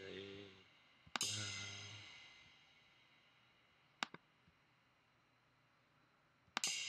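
Virtual drum cymbal sample from Addictive Drums struck twice, about a second in and again near the end, each hit ringing out and fading over a couple of seconds; a short click comes in between. These are cymbal notes sounding as they are clicked in the MIDI editor.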